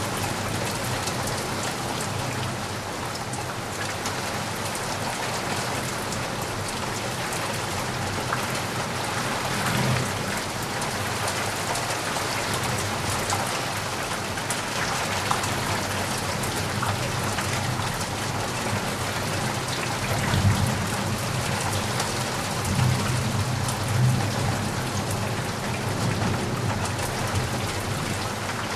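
Steady rain falling on a surface, with many fine drop ticks. Low rumbles of thunder swell about ten seconds in and again between twenty and twenty-five seconds.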